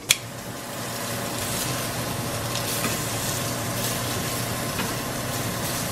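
Venison steaks sizzling steadily in a hot frying pan, the sizzle that shows the pan is hot enough. A sharp click right at the start.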